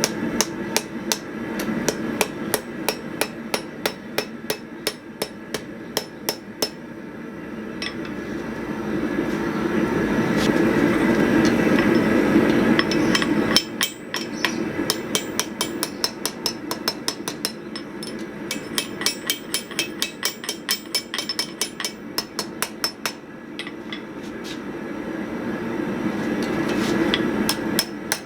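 Hand hammer striking hot steel hinge strap on an anvil, curling the end over to form the hinge knuckle, in runs of sharp ringing blows. The blows come fastest, about three or four a second, in the middle. A steady low rushing noise swells where the hammering pauses.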